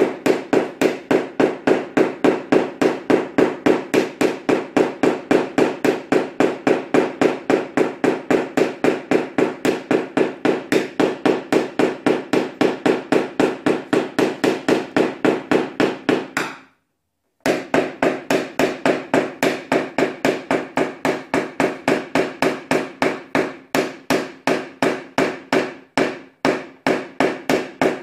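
Rapid, even tapping of a PDR tap-down tool struck with a small hammer against the sheet metal of a Nissan Teana door, about four taps a second, knocking down the high spots and ridges around a dent. The tapping breaks off briefly about two-thirds of the way through.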